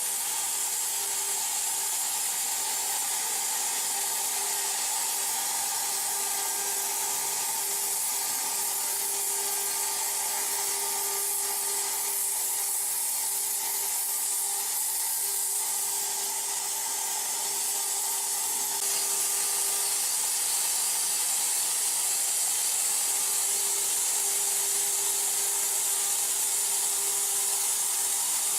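CNC plasma cutter's torch cutting metal: a steady hiss with a faint steady hum beneath, a little louder in the last third.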